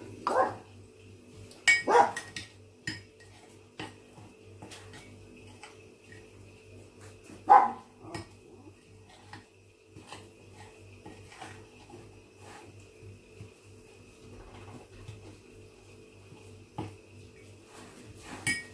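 A metal spoon clinks and scrapes against a glazed ceramic mortar while powdered plants are stirred and pressed into a soap paste, over a steady low hum. A few louder short sounds stand out: near the start, about two seconds in, and about seven and a half seconds in.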